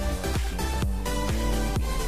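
Electronic dance background music with a steady kick-drum beat.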